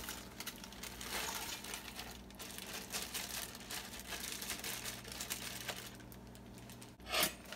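Thin plastic zip-top bag crinkling and rustling as it is handled and shaken to empty chopped celery into a pot, with a brief louder burst near the end.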